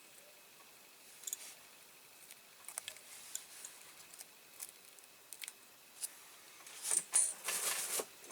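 Small sharp clicks and taps from tweezers and fingers working on a die-cast model, then a second or so of scratchy rustling near the end as masking tape is picked and peeled off the paint.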